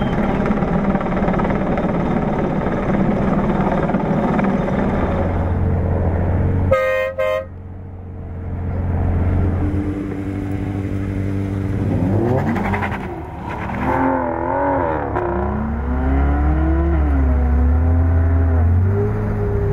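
Motor vehicle engines running, with two short horn toots about seven seconds in. Later an engine is revved up and down several times.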